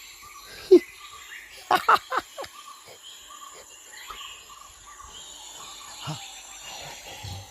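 Steady chirring of insects, with a single sharp sound about a second in and a quick run of four short sounds around two seconds in.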